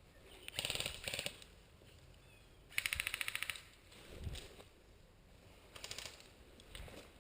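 Airsoft gun firing rapid full-auto bursts of evenly spaced pops. There are a few short bursts, and the longest and loudest comes about three seconds in.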